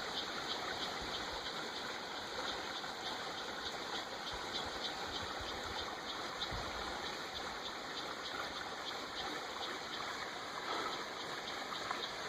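Creek water running in a steady rush.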